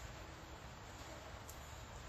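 Faint steady background hiss and low hum, with one light click about one and a half seconds in.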